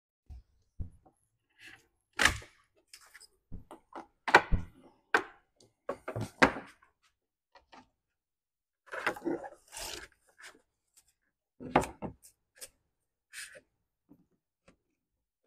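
Scattered knocks, thunks and scraping as a saw-cut piece of ZIP sheathing is worked loose and pried out of a foam-filled structural insulated panel. The strongest knocks come about two, four and a half and twelve seconds in, with a longer scrape around nine to ten seconds.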